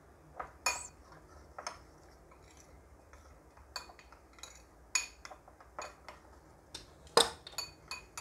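Metal spoon stirring a thick spice marinade in a small bowl, clinking and scraping against the bowl in irregular taps, the sharpest a little after seven seconds in.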